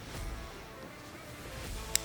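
Background music with steady held notes, and one sharp click near the end.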